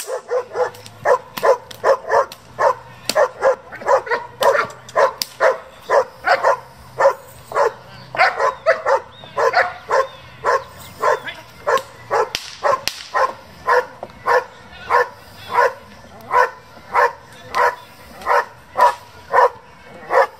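A German Shepherd barking steadily and rhythmically, about two to three barks a second, held back on its harness while it barks at a decoy during protection training.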